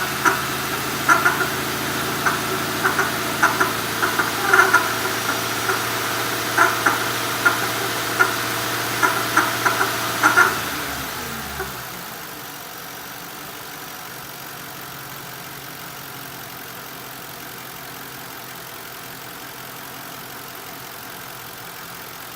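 The 4.6-litre V8 of a 2005 Mercury Grand Marquis is idling with irregular sharp knocks and clicks over its steady hum, the noise of a failing water pump. About eleven seconds in the engine shuts off and winds down, leaving only a steady low hiss.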